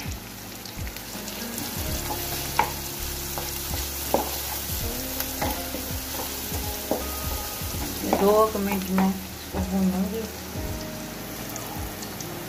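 Onions and ginger-garlic paste frying in butter in a metal kadai: a steady sizzle, with the clicks and scrapes of a wooden spatula stirring against the pan. A brief louder, wavering pitched sound comes about eight seconds in.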